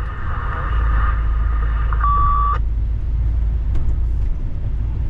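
Steady low engine and road drone of a heavy truck cab on the move. A single short electronic beep sounds about two seconds in.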